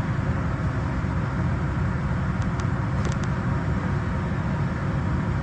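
Engine oil streaming out of the oil pan drain into a catch pan: a steady rushing splash, with a few faint clicks about halfway through.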